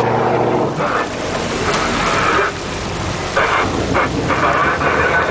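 A boat's engine running under a loud rush of water and wind noise on the microphone.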